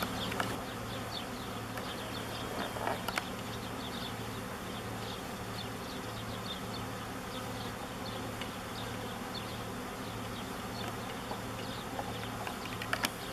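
Many honeybees buzzing around the entrance of a wooden hive: a steady hum, with a couple of faint knocks about three seconds in and again near the end.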